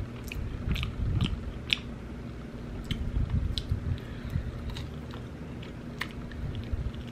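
Close-miked mouth sounds of biting and chewing into sauced barbecue baby back ribs: wet smacking clicks come irregularly as meat is gnawed off the bone.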